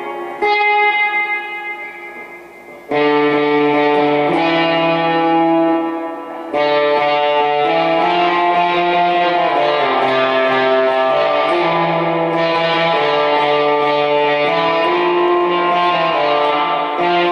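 Fender Jaguar electric guitar played through a Gomez El Sonido, a Fender Bassman-clone tube amp, with light overdrive. A chord rings out and fades over the first few seconds, then loud held chords change every few seconds.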